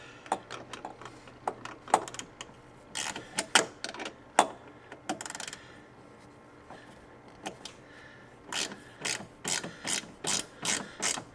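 Socket ratchet wrench clicking as a bolt on a catch can bracket is worked: a few scattered clicks and knocks, then from about eight seconds in a steady run of short ratcheting swings, about three a second.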